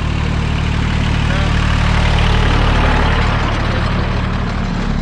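Tractor engine running steadily, its note changing near the end.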